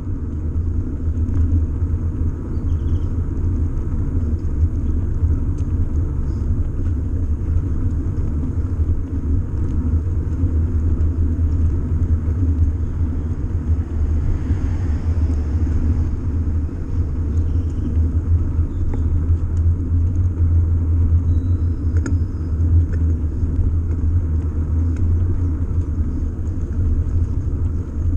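Steady low rumble of a bicycle rolling over brick paving, picked up through a bike-mounted camera.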